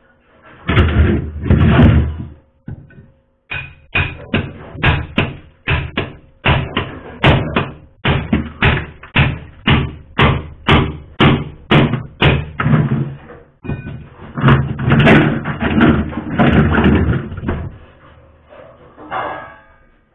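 Hammer striking thick ice built up inside a freezer to break it loose, a steady run of blows about two a second, with stretches of denser chipping and crunching near the start and after about 14 seconds.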